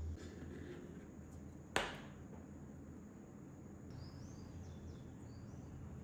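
Faint background noise with one sharp wooden tap a little under two seconds in, as a small wooden seat is set down on the wooden model car's chassis.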